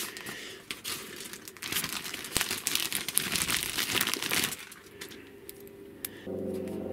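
Thin plastic bag crinkling as it is handled and opened to take out a coiled switch cord: dense crackling for about four and a half seconds, then quieter handling. Music comes in near the end.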